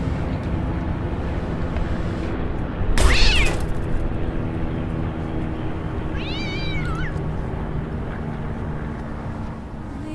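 Two cat meows over a steady background rumble: a loud yowl about three seconds in, then a shorter meow that wavers and falls in pitch a few seconds later.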